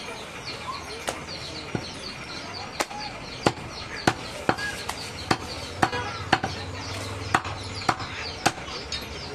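Butcher's cleaver chopping goat meat on a wooden block: about a dozen sharp knocks at an uneven pace, roughly one every half second to second.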